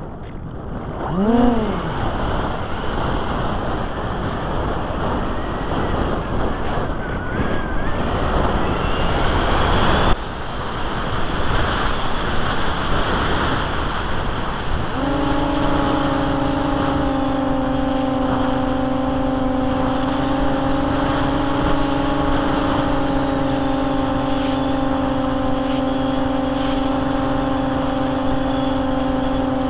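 Model plane's motor heard from a camera mounted on the plane: it revs up and back down once about a second in, then a loud rushing of air dominates as the plane descends. From about halfway the motor holds a steady pitch, dropping off at the very end.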